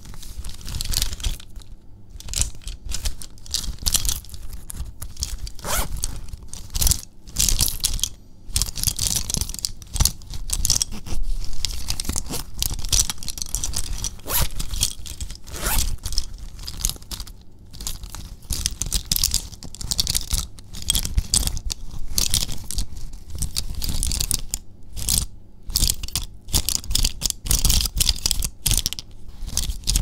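Zippers on a fabric pencil pouch being pulled open and shut over and over in short, irregular strokes, with the fabric being handled, and a few brief pauses.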